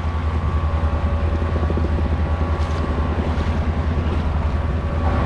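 Fast river current rushing over a riffle, with wind on the microphone: a steady, loud low rumble with a hiss over it.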